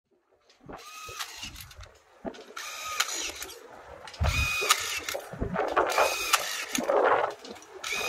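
Power-tool sound effects: about five short bursts of drill whir, each under a second, with clicks between them and a heavy low thump about four seconds in.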